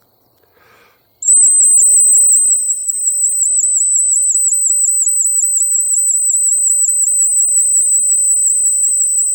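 Bronze ACME silent dog whistle blown in one long, loud, very high-pitched blast with a fast, even warble, starting about a second in, as a recall call to a dog.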